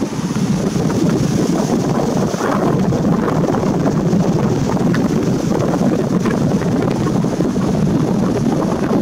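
Wind buffeting the microphone: a loud, steady, rumbling rush.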